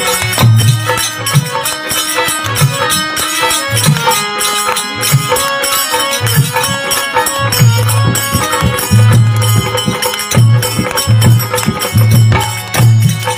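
Harmonium playing a lively bhajan melody in quick runs of sustained reed notes, with a hand-drum beat thumping underneath.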